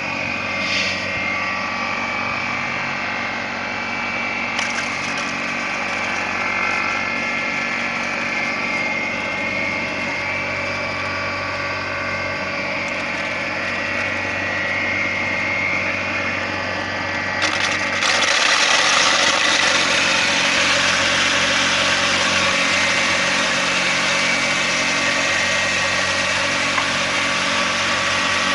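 Homemade corn grinder driven by a washing machine electric motor, running steadily with its blades spinning. About 17 seconds in a louder, harsher hissing rattle joins the motor's hum and carries on.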